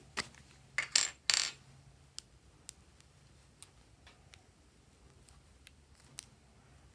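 A lump of soft pink slime being squeezed and kneaded by hand, giving off sharp sticky popping clicks: a quick cluster of loud pops in the first second and a half, then faint scattered clicks.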